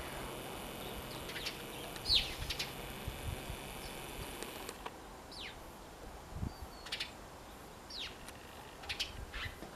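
Birds chirping now and then: a few short, high calls that slide downward, faint over a steady background hiss.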